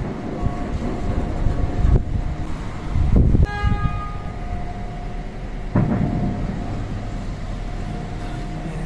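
Aerial fireworks exploding, heard as low thuds about 2, 3 and 6 seconds in over a continuous low rumble. A brief horn-like tone sounds just after the middle blast.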